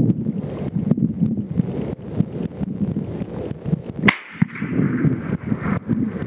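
Strong wind buffeting the microphone in rough, irregular gusts, with one sharp crack about four seconds in followed by a fading hiss.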